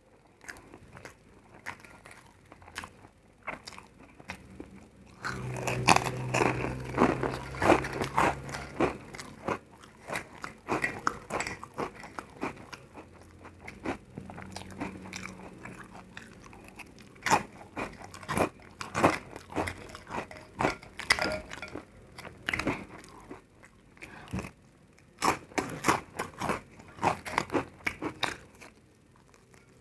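Close-miked eating of crunchy food: repeated bites and chewing give sharp, irregular crunching cracks, sparse at first and dense from about five seconds in.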